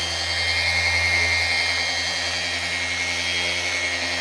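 Flex PXE 80 cordless mini random-orbital sander running on its top speed setting, dry-sanding the edge of a Plexiglas window: a steady high motor whine over a low hum.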